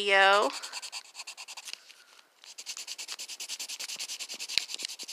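Coloured pencil scratching on paper in quick, even back-and-forth strokes as an area of a drawing is coloured in. The strokes ease off briefly about two seconds in, then pick up again.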